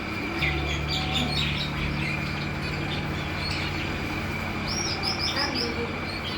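Many small caged tropical birds chirping and twittering in an aviary, with a quick run of about five repeated high chirps near the end, over a steady low hum.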